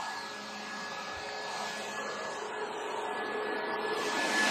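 Steady whir of a small electric motor with a thin, high, steady whine, getting gradually louder near the end.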